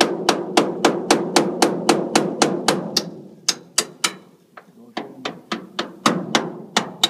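Small hammer tapping rapidly at the wing-root pin fitting of a Kitfox light aircraft, about three to four blows a second, each with a short metallic ring. The tapping stops briefly after about four seconds, then starts again.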